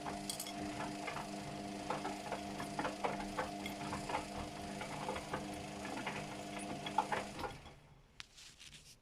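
Luxor WM 1042 washing machine on a cotton 40° wash, its drum motor running with a steady hum and light clicks and knocks from the tumbling load. The motor stops about seven and a half seconds in, leaving a few faint clicks, as the drum pauses between turns of the wash.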